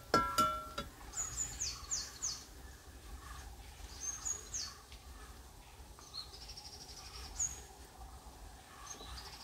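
Birds chirping: runs of short, high notes that slide downward, about a second in, again around four seconds, and between six and seven seconds in, over a faint steady background.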